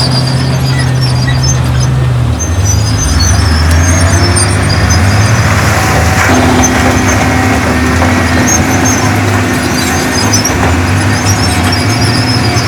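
Heavy diesel earthmoving machinery running steadily under load. The engine note shifts about two seconds in, and faint intermittent high squeals sound over it.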